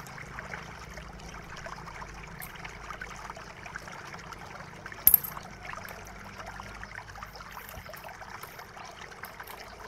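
Plastic pry tool working around the plastic bottom case of a Lenovo IdeaPad E10-30 netbook: faint scraping and crackling of plastic with small ticks, and one sharp snap about five seconds in as a case clip pops loose.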